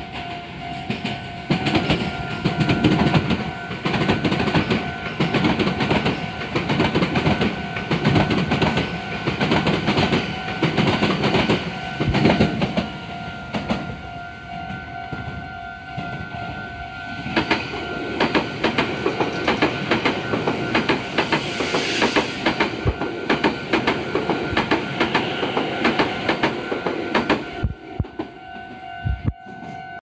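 Level crossing alarm ringing steadily as two eight-car Meitetsu electric trains pass in turn, their wheels clattering rhythmically over the rail joints. The first train passes in the first half. The second follows from about 17 s to 27 s.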